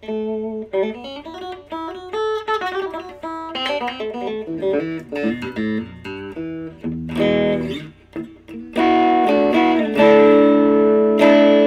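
Epiphone Wilshire P90 electric guitar on its middle pickup position, both P90s, played through a tube amp: single-note lines with bent notes, then strummed chords that ring louder from about nine seconds in, with a little breakup.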